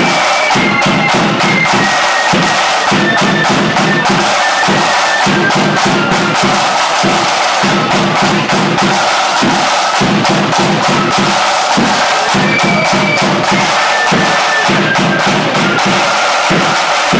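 Marching flute band playing: a row of side drums keeps up a dense, rapid rattle with a bass drum beating under it, and a high flute melody steps along on top.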